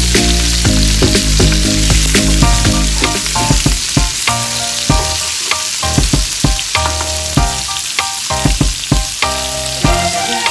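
Yard-long beans and pork sizzling in a hot wok while a metal spatula stirs them, scraping and clicking against the pan again and again. Background music plays underneath.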